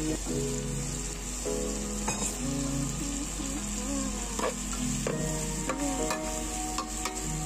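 Chicken pieces sizzling in hot oil with sautéed tomato, garlic and onion in a metal pan as they are tipped in and stirred, with a steady hiss. Now and then a short click or scrape of the metal spoon against the pan.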